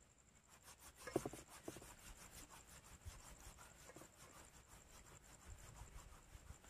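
Faint, repeated rubbing and rustling of hands working a dry bait mix of rice bran, wheat flour, maida and crumbled bread in a bowl.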